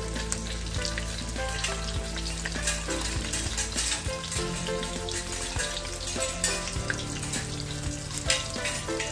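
Sliced onions frying in hot ghee in a kadhai: a steady sizzle with fine crackling spatter. The onions are freshly added and being fried until lightly reddened.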